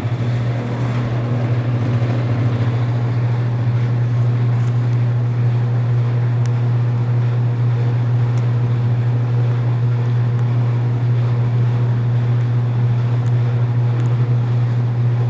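Bluedog BWS-80 HD industrial wire stripping machine running, its motor giving a loud, steady low hum.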